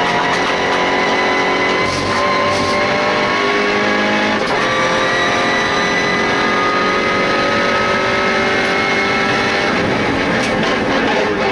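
MINI Challenge race car's engine pulling hard at full throttle down a straight, its pitch climbing steadily, heard from inside the stripped-out cabin over tyre and wind noise.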